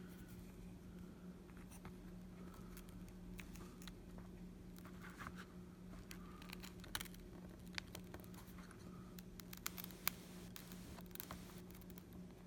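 Faint scratching and small clicks of a plastic pry tool working under a first-generation iPad mini's glass screen, lifting it from its adhesive, with a few sharper clicks in the second half. A steady low hum runs underneath.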